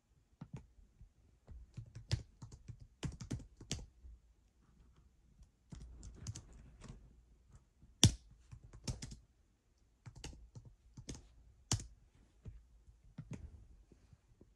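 Typing on a keyboard: irregular keystrokes in short runs, with a louder, sharper click about eight seconds in and another near twelve seconds.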